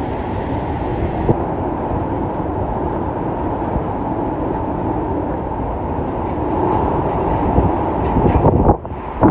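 Hurricane-force wind blowing hard and steadily around a car, heard from inside the car, a deep continuous rushing like a passing freight train. Near the end it drops off suddenly, then comes back in uneven gusts.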